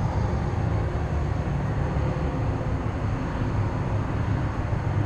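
Steady low rumble of a motor workboat under way, its engine mixed with wind and water noise.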